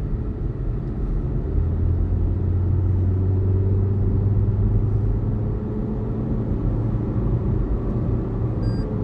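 Steady low drone of a car's engine and road noise heard inside the cabin while driving. Near the end, the lane keep assist system sounds short high warning beeps because the car is drifting across the lane line.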